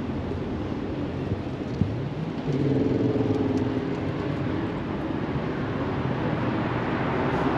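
Road traffic on a city street: a steady hum of passing vehicles, with a heavier engine coming up louder about two and a half seconds in.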